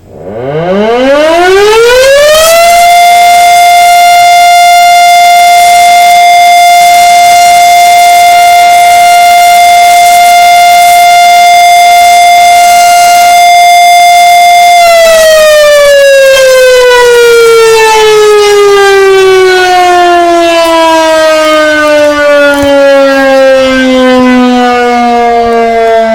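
1942 Federal Model 5A rotor siren winding up quickly to a very loud steady wail. It holds one pitch for about twelve seconds, then is cut off and spins down in a long, slowly falling tone.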